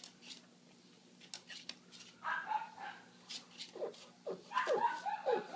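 Pug whining: after a few faint clicks, a held whine comes about two seconds in, followed by a run of short whimpers that each fall in pitch and grow louder near the end.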